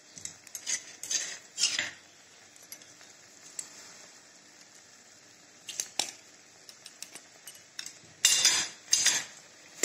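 Metal kitchen utensils clinking and scraping against a metal kadhai of simmering sugar syrup. There are a few light clinks in the first two seconds and another about six seconds in, then a louder run of scrapes between about eight and nine seconds.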